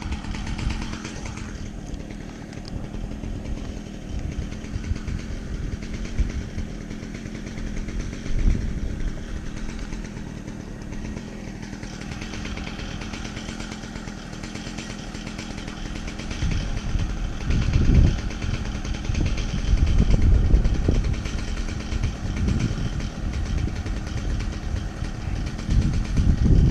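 An engine idling steadily, with louder low rumbling bursts in the second half.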